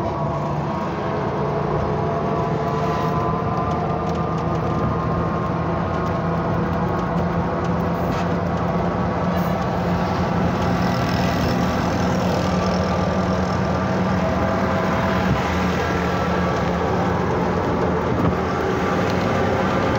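Motorised tricycle (auto-rickshaw) engine running steadily on the move, heard from inside its open passenger cabin, its pitch drifting a little with speed.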